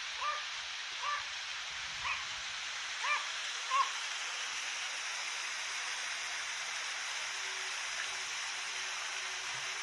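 Water rushing steadily through a canal lock, pouring over and through the lock gates into the chamber. A small dog barks five times in the first four seconds, about once a second.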